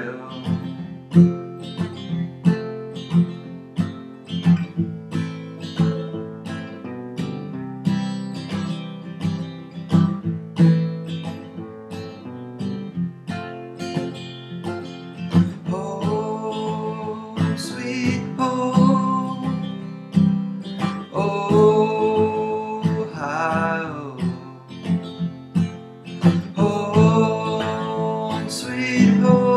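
Acoustic guitar strummed in a steady rhythm, playing an instrumental break in a folk-style song. From about halfway in, a wordless vocal line comes in and out over the guitar.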